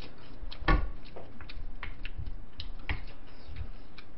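Eating sounds from a wooden spoon and a large glass mixing bowl of bibimbap: scattered clicks and taps of the spoon against the glass as rice is scooped, with chewing between. The loudest is a single knock just under a second in.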